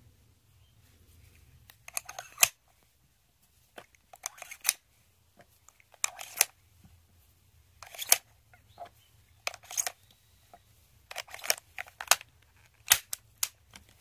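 Metal-cased cartridges being slipped one at a time into the chambers of a Marushin M10 Military & Police gas revolver's cylinder, each one a small cluster of light metallic clicks, every couple of seconds. The sharpest click comes near the end.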